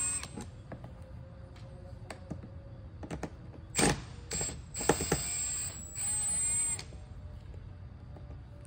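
Cordless drill backing screws out of a hollow plastic skeleton head, running in short bursts with a high motor whine: a brief blip just under four seconds in, then two runs of about a second each.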